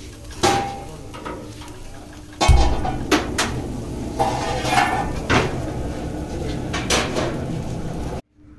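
Metal clinks and knocks of cooking utensils and a wire grill rack, about half a dozen sharp strikes over a steady noisy background. The background gets louder about two and a half seconds in and cuts off suddenly near the end.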